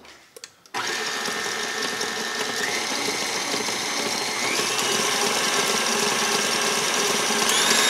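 KitchenAid Artisan stand mixer starting up about a second in and running steadily as it mixes red gel colouring into meringue. Its whine steps up in pitch three times as the speed lever is pushed higher.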